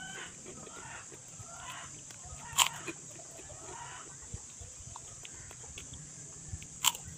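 Chickens clucking in the background, with a steady high hiss throughout. Two sharp clicks stand out, one about a third of the way in and one near the end.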